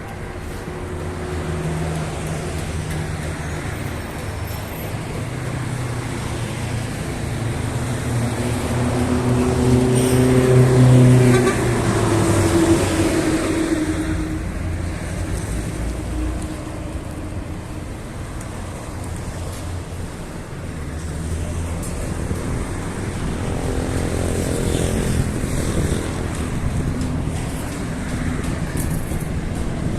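Road traffic: motor vehicles driving past with engines running. One grows loudest about eleven seconds in and fades away, and another passes more faintly near the end.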